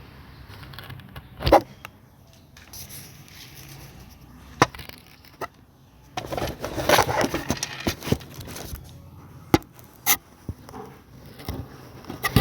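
Scattered single knocks and clatters, with a stretch of scraping and crumbling about six to eight seconds in; no jackhammer running.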